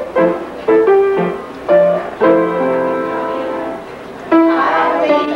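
Kitchen band playing a tune with the piano leading. The notes come in short separate strokes, then a chord is held for nearly two seconds in the middle.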